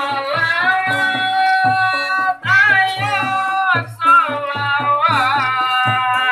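Music: a voice singing long, held, wavering notes over a steady hand-drum beat.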